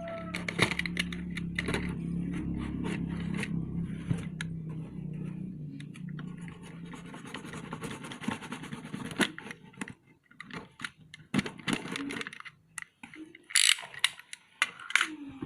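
Hands handling packaging: irregular scratching, scraping and small clicks. A steady low hum underlies the first half, and a quick run of sharper clicks comes near the end.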